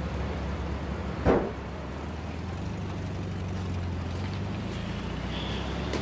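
A steady low rumble, with one short loud thump or whoosh about a second in.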